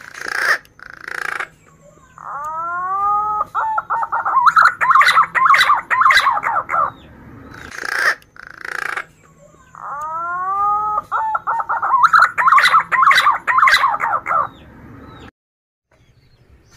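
Male punai daun green pigeon singing its song twice. Each song opens with a few rising whistled notes and runs on into a fast series of warbling notes for about four seconds, with short harsh bursts before and between the songs.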